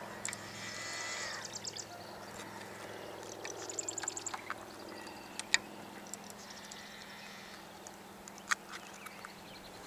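Wild birds calling across the lake: a pulsing, stuttering call in the first two seconds, then a fast high trill about four seconds in and scattered chirps. Two sharp clicks stand out, one a little past halfway and one near the end.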